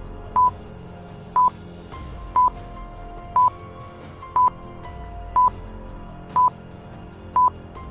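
Countdown stopwatch sound effect: a short, high beep once a second, eight in all, over quiet background music.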